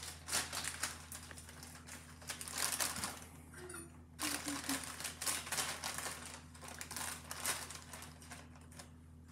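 Plastic microwave steam bag of vegetables crinkling in irregular bursts as it is opened and handled and a spoon scoops inside it.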